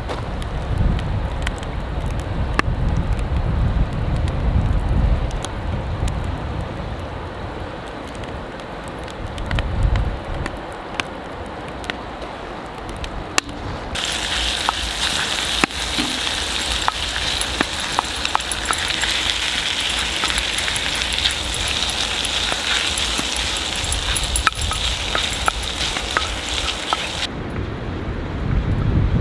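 Split log burning under a cast iron Dutch oven, crackling and popping. About halfway through, ground meat in the hot cast iron starts sizzling, a steady hiss that cuts off suddenly near the end.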